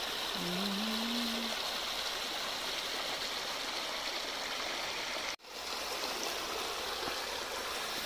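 Water from a small rocky-stream waterfall splashing and rushing steadily over the rocks into a pool. The sound breaks off for a split second a little past halfway.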